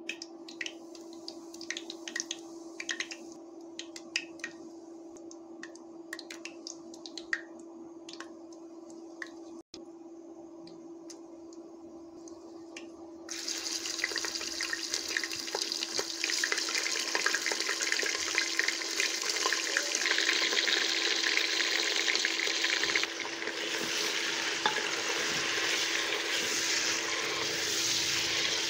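Seeds crackling in hot oil in a pressure cooker, with scattered pops. About halfway through, meat is frying in the oil: a loud, steady sizzle, with stirring near the end. A steady hum runs underneath.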